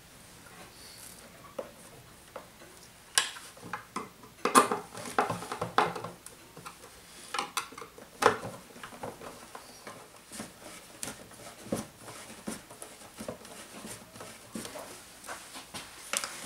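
Irregular clinks and knocks of metal tools and parts being handled on a workbench, with a busy cluster a few seconds in and a sharp knock about halfway through.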